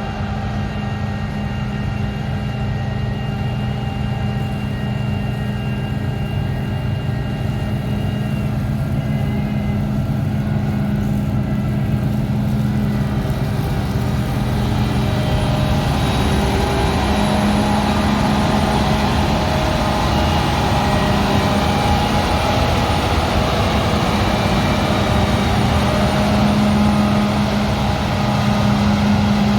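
Large diesel harvest machinery running steadily with a deep engine hum, growing louder and busier from about halfway as it comes closer.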